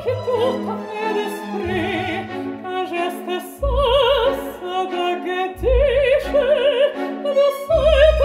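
Operatic background music: a high melody with wide vibrato over an orchestral accompaniment, with deep bass notes coming in every second or two.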